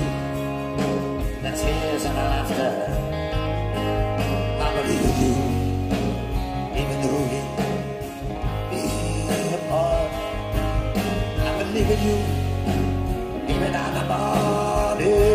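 Live country band playing an instrumental passage between sung verses, with steady bass and guitar.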